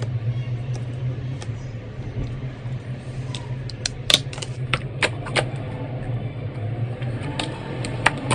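Glossy slime being poked and pressed by hand, giving a string of sharp wet clicks and pops, most of them in the second half, with the loudest about four seconds in. A steady low hum sits underneath.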